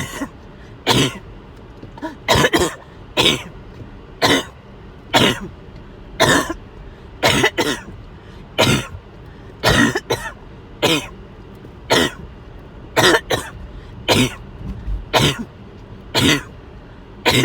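A feverish person coughing over and over in short, sharp coughs, about one a second, some coming in quick pairs.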